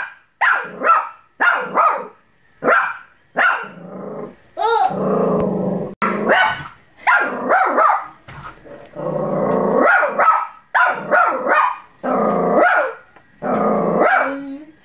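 Bichon Frise barking repeatedly, short sharp barks mixed with longer growling barks. It is alarm barking at its own reflection in a mirror, which it takes for a strange dog.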